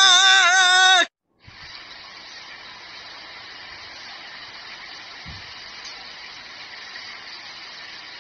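A loud wavering pitched sound cuts off about a second in; after a short gap comes a steady hiss of rain and flowing floodwater.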